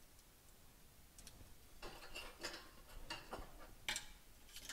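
Light clicks and taps of plastic and metal parts being handled as a PC power supply is reassembled, its fan and wire fan grill fitted back in place. The clicks are irregular, with a cluster about two seconds in and the sharpest one about four seconds in.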